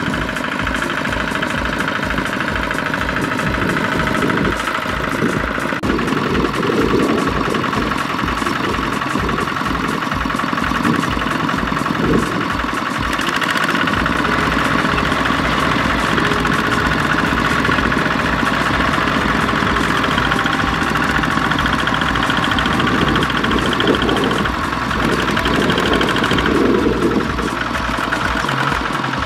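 Kubota ZT155 single-cylinder diesel engines of walk-behind two-wheel tractors running with an even chugging pulse, which turns steadier about halfway through.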